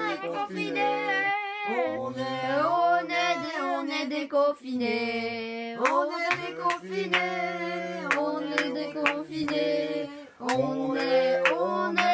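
Unaccompanied singing by a low voice and a higher voice together, in held notes that change about every second, with a few short clicks.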